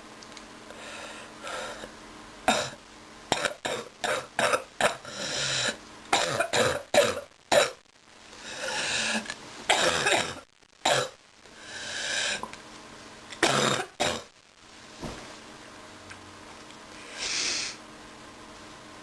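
A sick person coughing in repeated fits: many short, harsh coughs come one after another from about two seconds in, with longer breaths between them. The fit stops around fifteen seconds in, and one more breath or cough follows near the end.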